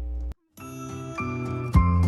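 Background music fades in after a brief mains hum cuts off: bright chime-like tones, then a heavy beat with low thumps entering near the end.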